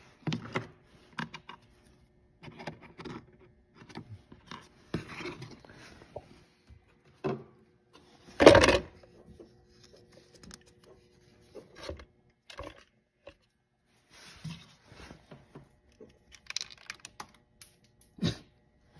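Short clicks, rattles and knocks of a plastic fuel pump module being handled and fitted by hand, with one louder knock about eight and a half seconds in.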